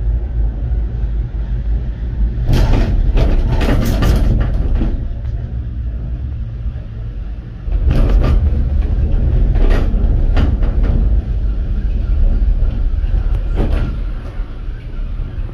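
Gondola cabin of an aerial cable car rumbling as it rolls into the station, with several bursts of rattling and clattering knocks as it runs over the station's wheels and rails.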